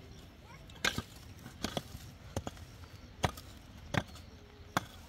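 A short-handled hoe chopping into soil: about six sharp strikes, roughly one every three-quarters of a second.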